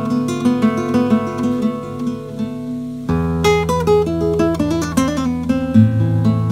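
A 1966 Nakade A3 nylon-string classical guitar played fingerstyle. A quickly repeating picked pattern rings over a held bass note; about three seconds in a new bass note sounds and a run of single notes steps downward, and another low bass note comes in near the end.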